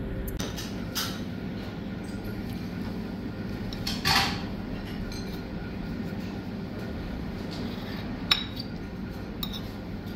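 A metal spoon clinking and scraping against a china plate in a few short strokes, the loudest about four seconds in, over a steady low background noise.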